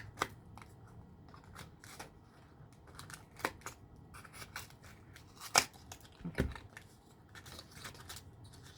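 Small plastic packaging being handled and opened: scattered crinkles and light clicks, with one sharp click a little past halfway and a soft knock just after it.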